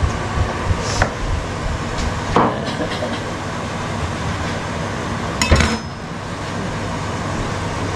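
Kitchen knife cutting tomatoes on a wooden chopping board: a few separate knocks, the loudest about five and a half seconds in, over a steady hum.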